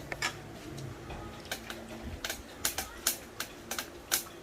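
Eating sounds at a meal: a run of irregular sharp clicks and ticks, about a dozen, some louder than others.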